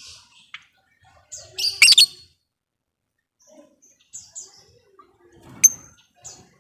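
Lovebird giving short, sharp, high-pitched chirps at irregular intervals, the loudest cluster about two seconds in.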